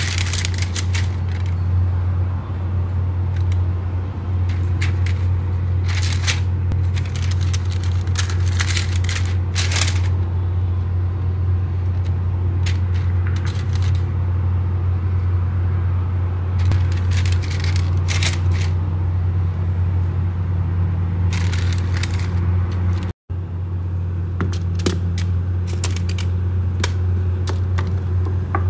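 Printed baking paper crinkling and scraping in short bursts as it is handled and food is laid on it, over a steady low machine hum.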